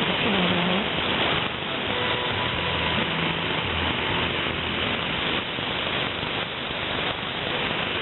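Shortwave AM reception on 14.5 MHz: a steady rush of noise with a faint Chinese-language voice breaking through in the first second and a low hum in the middle.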